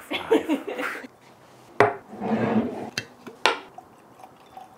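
Glass clinks and knocks of a whiskey bottle and a tasting glass on a wooden tabletop, three sharp ones in all, with a short rustle between the first two; near the end the bourbon starts pouring into the glass.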